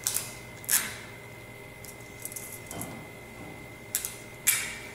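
Clear adhesive tape pulled off a desktop tape dispenser and torn on its cutter, in short rips: two near the start and two more about four seconds in.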